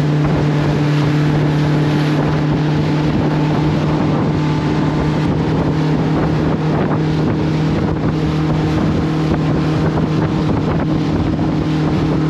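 Tour boat's motor running at a steady, even drone.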